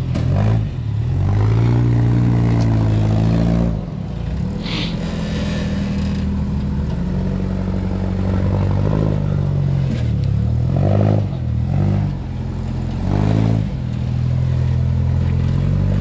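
Off-road rock-crawling rig's engine idling and being revved in short blips, its pitch rising and falling several times, with a brief hiss about five seconds in.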